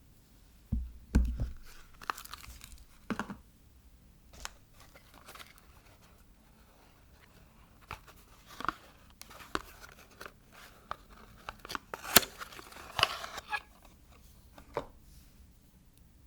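Soap bars being unpacked: wrapping crinkling and tearing in irregular bursts, with scattered sharp clicks and a soft low thump about a second in.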